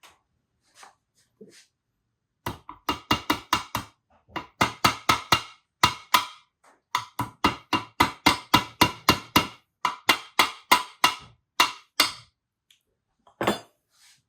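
Hammer tapping new bearing parts into the pivot of an aluminium dirt-bike swingarm: quick runs of sharp metallic taps, about five a second, each with a short ringing note, broken by brief pauses, and a last single strike near the end.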